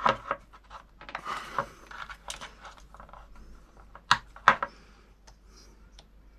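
Small plastic and metal parts being handled, an MT60 connector and its freshly soldered motor wires: scattered clicks and scratchy scraping, with two sharp clicks about four seconds in.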